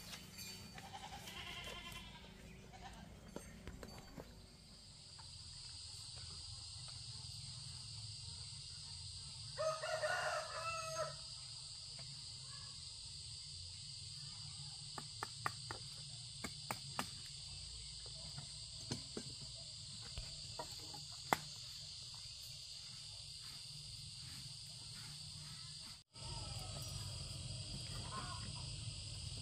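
Insects drone steadily at a high pitch, with one loud farm-animal call about ten seconds in that lasts about a second and a half. Scattered light clicks and taps follow.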